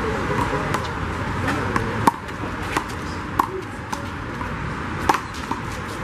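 Rubber handball ("big blue") being slapped by hand and smacking off a concrete wall and court during a one-wall handball rally: a series of sharp, brief smacks, the loudest about two, two and three-quarter, three and a half and five seconds in.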